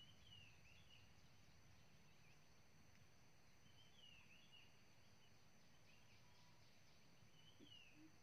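Near silence: faint outdoor ambience with a few soft bird chirps in three brief clusters, near the start, about four seconds in and near the end.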